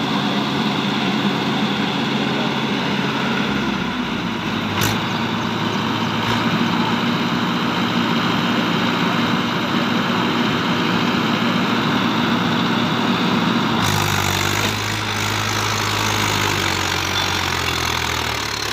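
Swaraj 843 XM tractor's three-cylinder diesel engine running steadily under heavy load as it strains to drag a loaded trolley out of mud. Its note changes abruptly about two-thirds of the way through.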